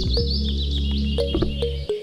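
Background music with steady bass notes and a regular beat, with birds chirping over it; the music drops out briefly near the end.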